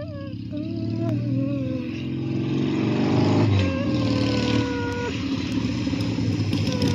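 Harley-Davidson Sportster 883 V-twin engine running, growing steadily louder as the bike comes closer.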